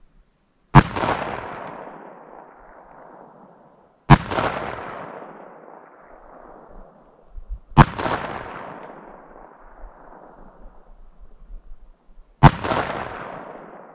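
Four shots from a .44 Ruger Old Army cap-and-ball revolver loaded with .457 round balls over 30 grains of 3F black powder, fired about three to four and a half seconds apart. Each sharp report is followed by an echo that dies away over two to three seconds.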